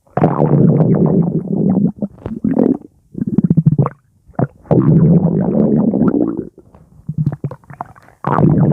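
Stomach growling in several long bouts of low, rapidly fluttering gurgling, broken by short pauses.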